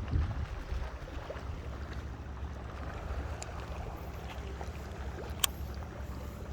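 Small boat engine running steadily with a low rumble, and one sharp click about five and a half seconds in.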